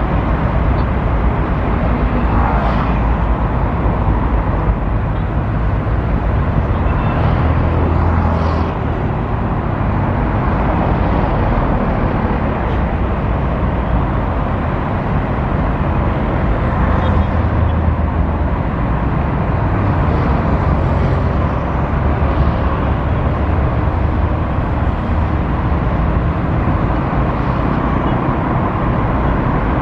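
Steady low engine rumble with a broad noisy hiss over it, swelling slightly a few times.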